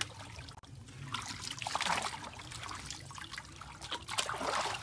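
Shallow muddy pond water splashing and trickling as hands move through it, louder in two bouts, about two seconds in and near the end.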